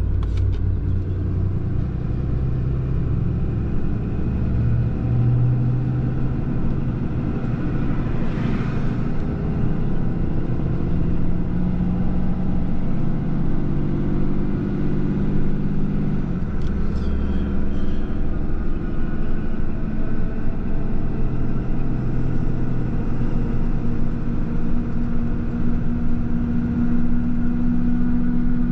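Pickup truck driving, heard from inside the cab: engine hum and tyre noise, the engine note shifting with speed and rising steadily near the end. A brief hiss about eight seconds in.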